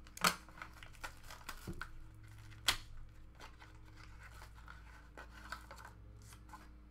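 A small cardboard trading-card box, a 2018 Futera Unique World Football box, being torn open and handled by hand: scraping and tearing with a sharp snap a quarter second in and a louder one near three seconds in, then quieter rustling as the cards come out.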